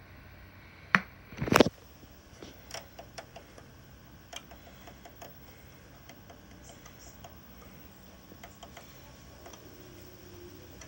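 A sharp click about a second in and a louder knock half a second later, followed by scattered faint, irregular ticks and clicks.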